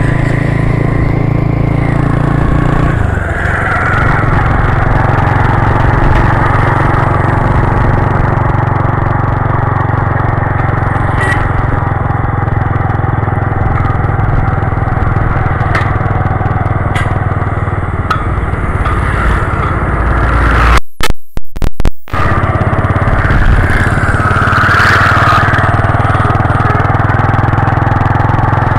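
Engine of the vehicle carrying the microphone running steadily on the move, under heavy wind rumble, its note shifting a few seconds in. About three quarters of the way through, the sound breaks up for about a second.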